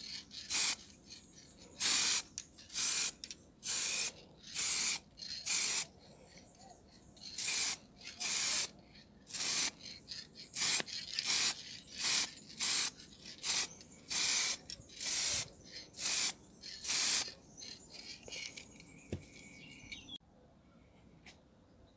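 Aerosol can of Motip wheel spray paint being sprayed in short passes: about eighteen quick hisses, roughly one a second, stopping a few seconds before the end.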